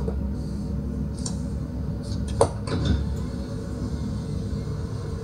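Steady low rumble of a 4x4 heard from inside the cabin as it drives along a flooded road, with a few light clinks in the first three seconds.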